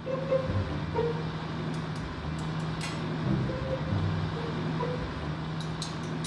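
A motor vehicle's engine running steadily, with a low hum and road-traffic noise, and a few faint clicks.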